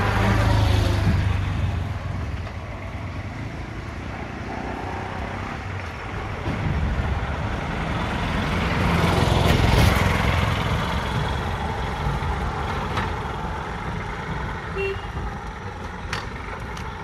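Outdoor road traffic rumble, swelling loudest about nine to ten seconds in, with a few sharp clicks near the end.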